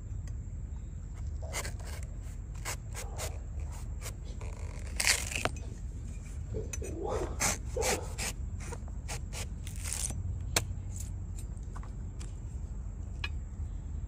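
A large knife slicing and shaving the husk off a young green coconut: a run of short, crisp cutting and scraping strokes, loudest about five and eight seconds in, stopping near the ten-second mark.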